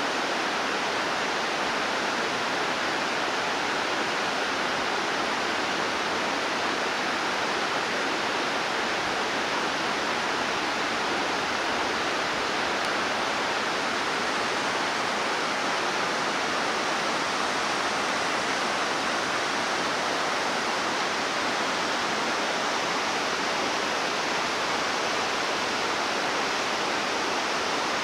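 Steady rush of a fast-flowing mountain stream, an even roar of water.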